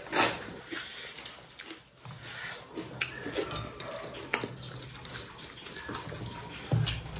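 Close-up wet eating sounds: chewing and mouth smacking, with hands working rice and dal on steel plates. The loudest is a short, noisy wet burst just after the start, and there is another sharp one near the end.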